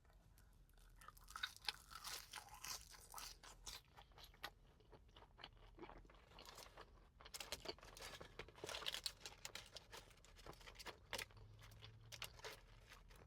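Faint, irregular crunching and chewing of fast food in a person's mouth, close to the microphone.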